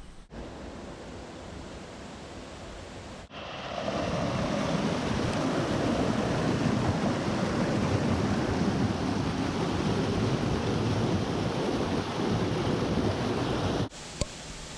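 Steady rushing of a mountain stream or waterfall, a continuous noisy hiss. It is softer for the first three seconds, much louder from about four seconds in, and cuts off suddenly near the end.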